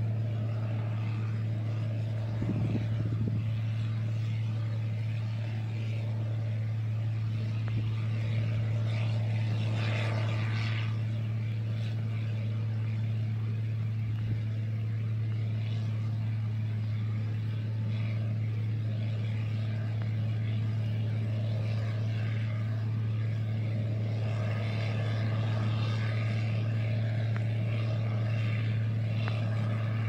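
Case IH 2188 combine harvesting soybeans, its diesel engine and threshing machinery running as a steady, even drone with a low hum.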